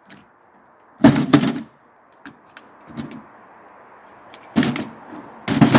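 A few loud, short bangs: two close together about a second in, a fainter one in between, and another pair near the end.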